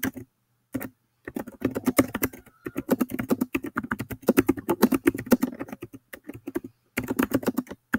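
Fast typing on a computer keyboard: a quick run of key clicks, a single click first, then a long continuous stretch with a brief pause near the end before more keystrokes.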